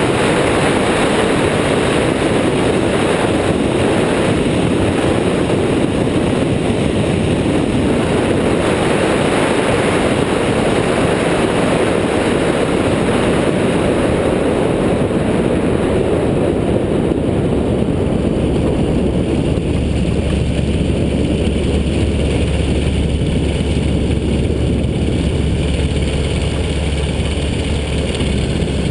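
Airborne XT Tundra ultralight trike's engine and propeller running, with wind rushing over the wing-mounted microphone as the trike comes in low and lands. The rush eases during the rollout, and about two-thirds of the way through a steady low engine drone comes to the fore.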